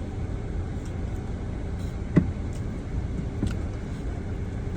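Steady low rumble of a car idling, heard from inside the cabin, with one brief sharp knock about two seconds in.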